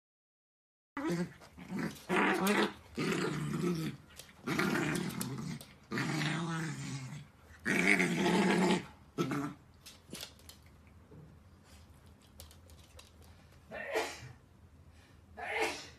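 Small dogs growling in play while wrestling, a run of long, loud growls one after another. Then it quietens, with two short dog vocalizations near the end.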